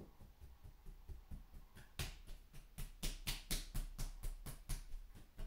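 Hands patting a bare chest in a quick rhythm, about four pats a second: dull thuds at first, turning into sharper slaps about two seconds in.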